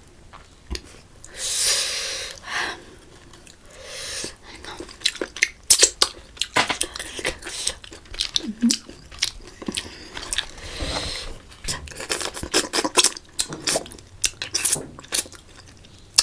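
Close-up eating sounds: slurping and sucking spicy water snails (ghungi) out of their shells, with many small clicks of shells and chewing. There are longer sucking slurps about two seconds in, around four seconds, and near eleven seconds.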